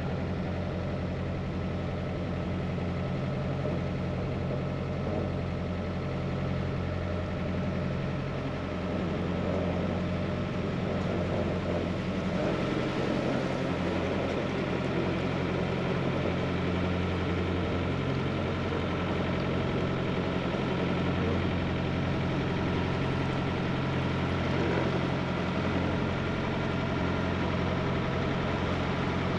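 Narrowboat's diesel engine running steadily under way, a constant low drone.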